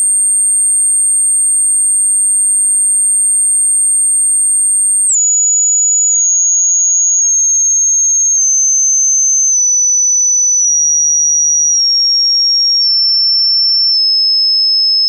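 Pure sine-wave hearing-test tone, loud and very high-pitched. It holds steady for about five seconds, then drops to a lower pitch and keeps stepping down slightly about once a second.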